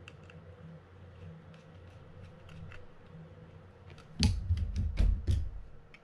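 Small screwdriver working a screw at the bale arm mount of a Mitchell 302 spinning reel, with metal parts clicking. Faint scattered clicks at first, then a cluster of louder clicks and knocks a little after four seconds in, lasting about a second and a half.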